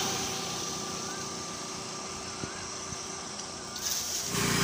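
Steady outdoor background noise with the low hum of a motor vehicle on a nearby road, which grows louder near the end.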